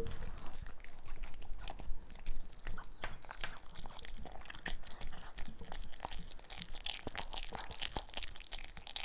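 Maltipoo dog chewing a crunchy noodle-style dog treat, a dense run of small crisp crunches and bites.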